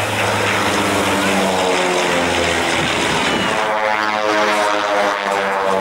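Pitts Special S-1D biplanes' Lycoming IO-360 engines and fixed-pitch metal propellers running steadily overhead during aerobatics. The engine note shifts in pitch as the aircraft manoeuvre.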